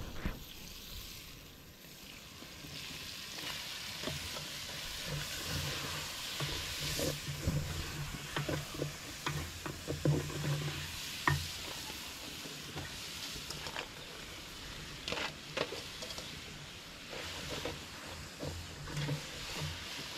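Food sizzling in a pot over a fire while it is stirred with a wooden cooking stick: a steady sizzle with scattered scraping knocks against the pot.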